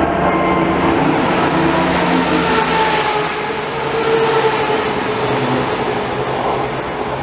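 A train running through the station at close range: a loud, steady rush of wheel and rail noise with several held whining tones.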